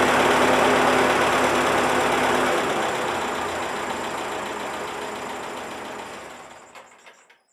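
1948 Ford 8N tractor's four-cylinder flathead engine running. Its note changes and grows quieter about two and a half seconds in, then it dies away near the end with a couple of last knocks.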